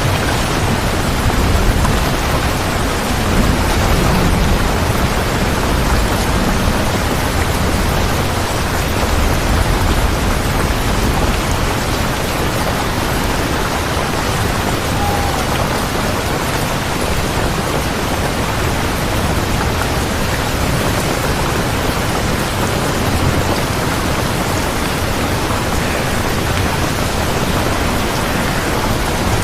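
Steady, dense rainfall, with a low rumble of thunder over roughly the first ten seconds.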